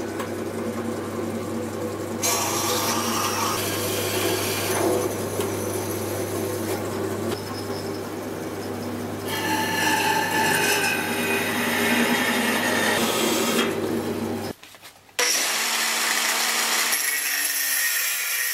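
A small metal-cutting bandsaw running with a steady motor hum, its blade cutting through steel flat bar and then through a length of threaded rod. After a short break near the end, an angle grinder cuts steel.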